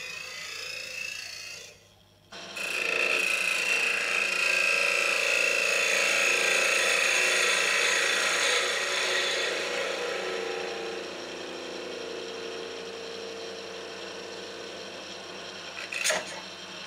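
Half-inch spindle gouge cutting the face of an oak blank spinning on a wood lathe: a steady scraping hiss with a steady high tone. It breaks off briefly about two seconds in and grows quieter in the second half, with a short sharp knock near the end.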